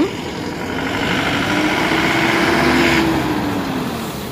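Engine running steadily, swelling louder for a couple of seconds in the middle as its pitch rises slightly and falls back.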